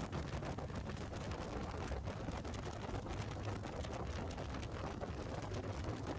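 Wind buffeting the microphone of a Harley-Davidson Fat Boy riding at road speed: a steady rush with a heavy low rumble, mixed with the motorcycle's engine and tyre noise.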